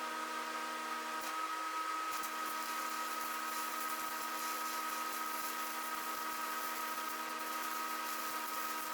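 Stick welding on cast iron with Certanium 889 rods: a fine, steady crackle of the arc that picks up about a second or two in, over the constant hum of the welding machine.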